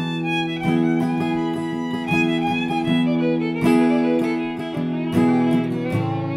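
Music: an improvisation on a plucked string instrument, single notes picked over held low notes.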